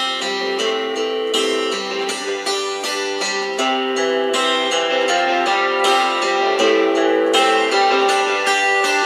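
Recorded music played from an MP3 player through the small 4-inch speaker of a battery-powered solid-state guitar amp used as a powered speaker, with a thin sound and almost no bass.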